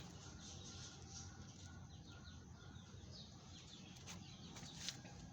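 Faint bird chirping in quick, high little calls over a low steady background hum.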